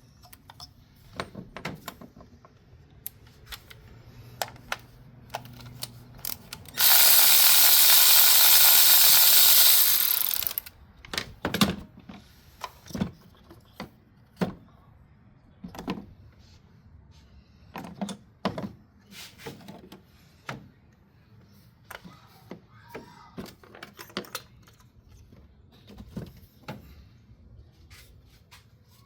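Hand tools working on a car engine's spark plugs: scattered clicks, clanks and ratchet sounds of metal tools. About seven seconds in, a loud steady noise from a tool runs for about three and a half seconds, then stops.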